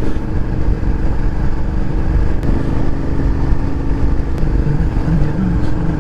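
Suzuki SV650S V-twin motorcycle engine running at steady road speed, under heavy wind rush on the microphone.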